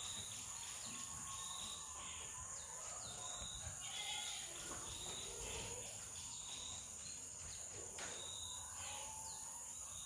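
Quiet rural ambience: a steady high-pitched insect drone, with short chirps repeating about once a second.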